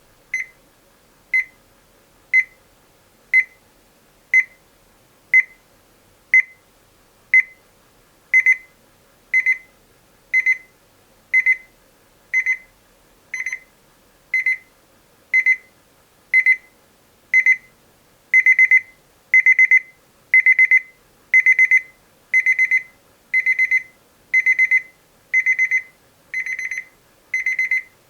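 Rhythm 8RZ215SR19 alarm clock's electronic alarm beeping about once a second at one high pitch. The beeps start short, grow longer about eight seconds in, and longer and louder again about eighteen seconds in, so the alarm becomes more insistent the longer it runs.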